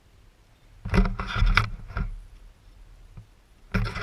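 Two bursts of knocking and rattling with a low rumble: one lasting about a second, starting about a second in, and another starting near the end.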